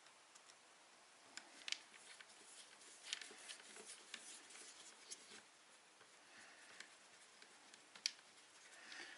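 Faint scattered clicks and light scraping as a small precision screwdriver and fingers work a tiny screw into the plastic body of a Hubsan Zino Mini SE drone, with sharper clicks about two seconds in and again near the end.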